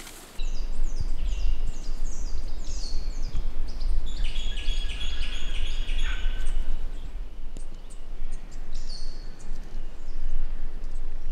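Wild birds calling: runs of short, high, downward-sweeping chirps, with a denser cluster of calls in the middle, over a steady low rumble.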